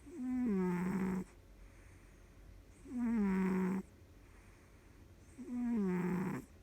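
A sleeping cat snoring: three snores, each about a second long, coming roughly every two and a half seconds, each with a pitch that steps down as it goes.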